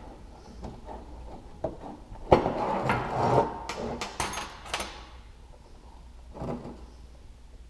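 Metal clicks, knocks and scraping as a homemade puller tool is worked to push a Stihl chainsaw's crankcase halves apart, busiest for a couple of seconds about a third of the way in.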